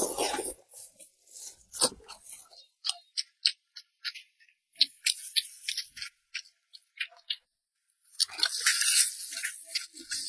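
Close-mouthed eating of a braised pork skin roll: a run of short, wet smacking clicks, then a denser, louder stretch of chewing about eight seconds in.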